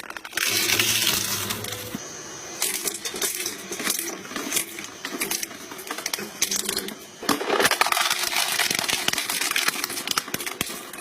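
A crushing machine breaking up an object: dense crackling and snapping, with a low motor hum under a loud burst about half a second in, and a second loud stretch of crunching from about seven and a half seconds to ten.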